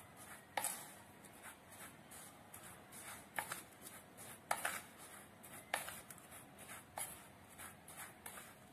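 Metal spoon stirring dry coconut powder and cocoa powder in a bowl: a faint, gritty scraping, with a few sharp clicks where the spoon knocks the side of the bowl.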